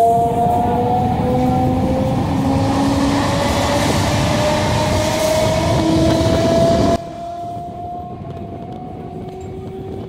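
Electric multiple-unit suburban train accelerating: a whine of several tones from the traction motors rises slowly in pitch over loud running noise. About seven seconds in, the running noise drops away abruptly and the rising whine carries on alone.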